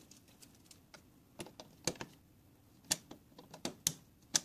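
Plastic pieces clicking and tapping against a wall receptacle and its stainless cover plate: a handful of sharp, irregular clicks, with the last loud one as a plastic plug is pushed into the outlet near the end.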